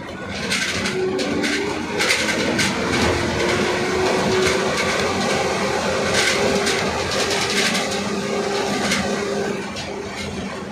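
A vehicle driving along a road, heard from inside: the engine hums steadily, with frequent short clatters and knocks from the body.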